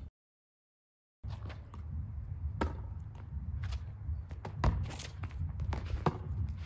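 After about a second of dead silence, a basketball thumps off feet and knees and bounces on paving during freestyle ball-juggling, mixed with scuffing footsteps, in irregular sharp knocks over a low steady rumble.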